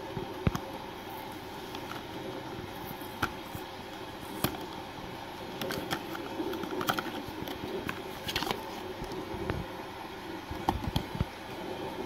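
Cardboard medicine carton being handled and the plastic syrup bottle taken out of it: scattered light clicks and knocks, with a short scraping rustle about eight seconds in. A steady background hum runs underneath.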